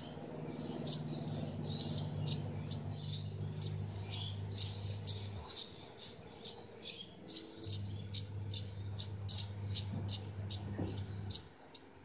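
Small wire brush scrubbing a spark plug, rhythmic scratchy strokes about three a second, cleaning the plug of a pit bike that is hard to start. A low steady hum runs underneath, dropping out for about two seconds midway.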